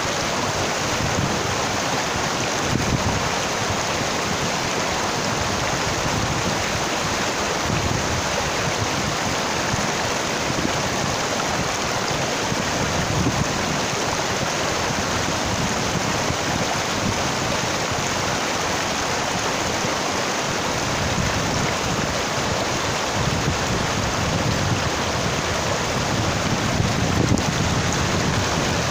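Shallow rocky mountain stream rushing over stones, a steady hiss of running water, with wind buffeting the microphone in uneven low gusts.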